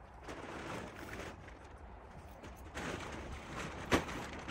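Heavy tent fabric rustling and crumpling as a Gazelle pop-up hub tent is folded down on a ground mat, in two spells of handling, with a single sharp knock just before the end.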